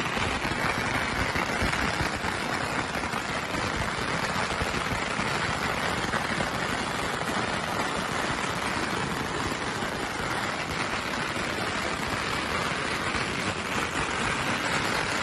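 A long string of firecrackers going off in a dense, continuous crackle of rapid bangs.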